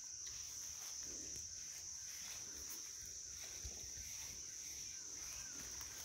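Faint, steady high-pitched buzzing of insects, such as crickets or cicadas, with no pauses.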